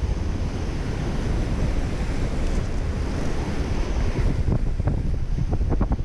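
Sea surf breaking and washing against the reef, with wind buffeting the microphone. In the last second or so a quick run of short sharp clicks or knocks sounds over it.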